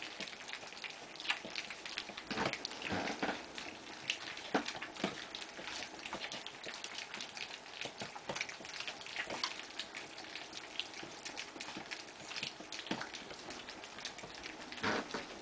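A litter of weaning-age Kerry Blue Terrier puppies eating together from a multi-bowl feeder with stainless steel bowls: a busy, irregular patter of many small wet clicks and smacks from their mouths in the food and against the metal bowls.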